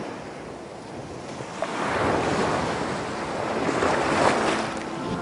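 Ocean surf: waves washing in and breaking, swelling about two seconds in and again near four seconds.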